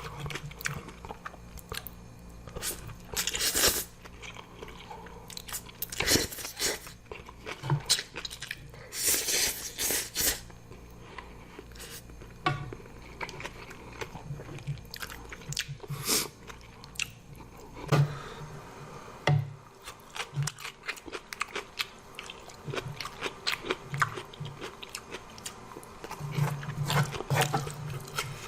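A person eating spicy zucchini-noodle ramen with kimchi and cucumber, chewing and crunching with many wet smacks and clicks, broken by a few longer noisy bursts about a second each.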